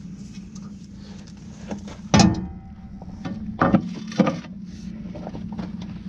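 A metal bar jabbing and scraping at hard, sticky gumbo mud packed around the flighting of a plugged auger, with a sharp strike about two seconds in, two more a little later, and lighter knocks between. A steady low hum runs underneath.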